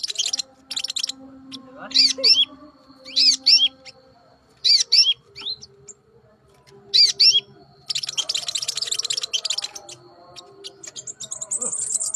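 A konin songbird singing loudly in short repeated phrases of sharp clicks and quick up-and-down whistled notes. Near the middle comes a long fast chattering rattle, and near the end a high buzzy trill.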